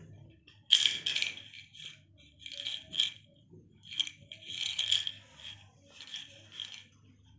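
Tablets rattling inside a small plastic pill bottle as a rabbit noses and pushes it, in irregular bursts of rattling, the loudest about a second in.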